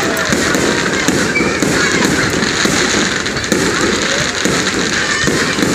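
Fireworks display: a dense, continuous crackling and popping of shells bursting, with no pause.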